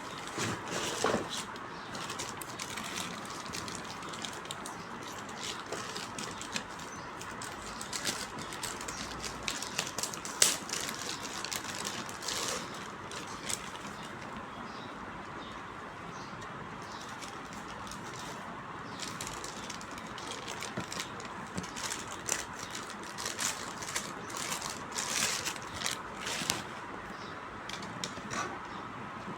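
Scattered clicks, taps and rustles of a mixer grinder's packaging and parts being handled during unboxing, over a steady background hiss.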